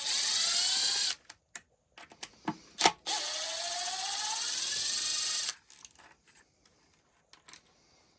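Cordless power driver backing out the steering brace screws of an RC truck chassis in two runs, its motor whine climbing in pitch. The first run stops about a second in, and the second lasts about two and a half seconds. Sharp clicks fall between the runs.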